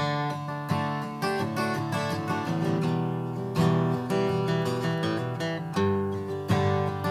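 Acoustic guitar playing: chords strummed and let ring, with single notes picked in between.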